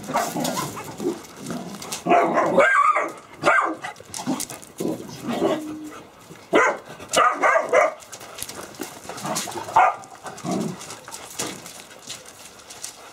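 Three-month-old Caucasian shepherd puppies barking and yapping in short bursts as they play-fight, dying down after about ten seconds.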